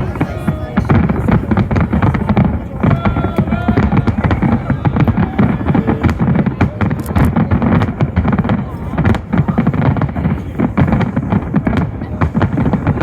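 A dense, continuous barrage of fireworks and firecrackers, with bangs and crackles going off many times a second without a break.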